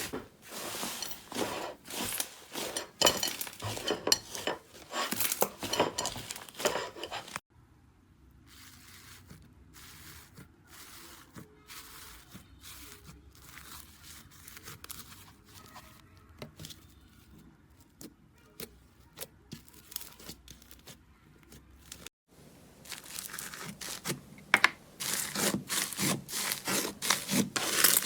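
Slime being squeezed, stretched and poked by hand, with dense crackling and crinkling clicks. About seven seconds in it cuts to a much quieter stretch of soft pops, and the loud crackling returns near the end.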